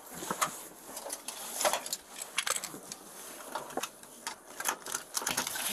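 Rustling with a scatter of irregular clicks and knocks: a car seat belt being pulled across and buckled in the back seat of a patrol car.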